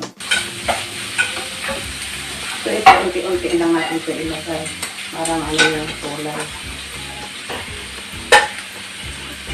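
Nasi goreng (fried rice) sizzling steadily in a frying pan while it is stirred and tossed with a wooden spatula. Three sharp utensil clacks come about 3, 5½ and 8 seconds in.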